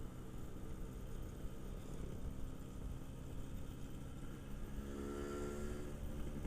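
Yamaha RX King's single-cylinder two-stroke engine running steadily while riding. A second pitched tone swells over it for a second or two about five seconds in.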